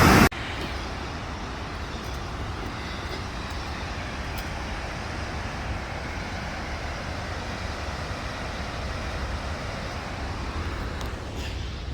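Steady rushing roar of a waterfall. It drops suddenly to a quieter, even rush a moment in.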